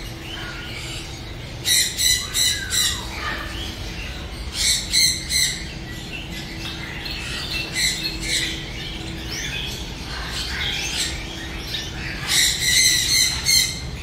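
Caged birds calling: three bursts of harsh, rapidly repeated squawks, each about a second long, over steady fainter chirping and twittering.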